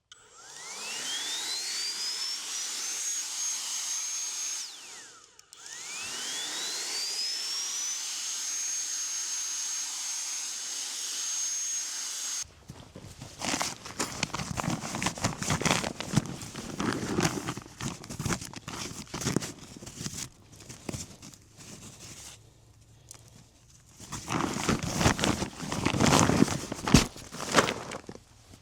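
A small electric motor spins up with a rising whine to a high steady pitch and runs, stops briefly, then spins up and runs again. About twelve seconds in it cuts off, and irregular rustling, clicks and knocks follow.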